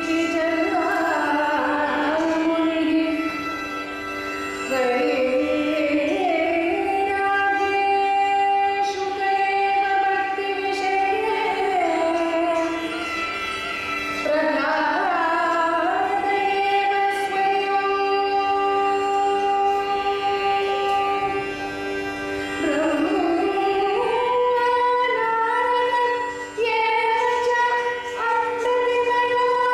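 Solo female Carnatic vocal, unaccompanied by the mridangam, singing in raga Mohanam: long held notes joined by sliding ornaments, over a steady drone.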